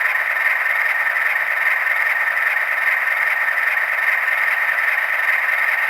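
Sound decoder of a model Baldwin AS616 diesel locomotive playing through its small onboard speaker: a steady, hissy, tinny noise with no distinct strikes or tones.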